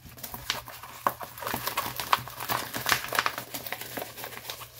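Diamond painting canvas and its plastic cover sheet crinkling and rustling in the hands as it is lifted and moved, an irregular run of crackles that is busiest in the middle.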